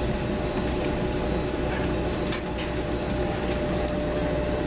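Steady mechanical hum with two steady tones running through it, and a few faint clicks.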